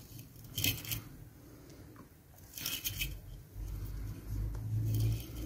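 Handling of small crystal beads and a plastic spool of fishing line on a tabletop: two brief clicking rattles, the second about two seconds after the first, then low bumping and rubbing of the handling.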